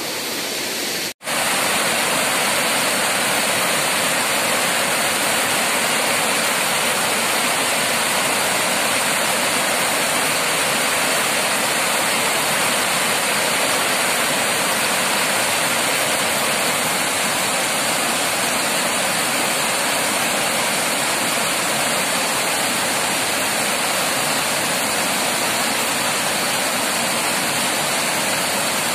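Water rushing steadily over a small weir waterfall close by, a loud even rush. The sound cuts out for an instant about a second in, then carries on unchanged.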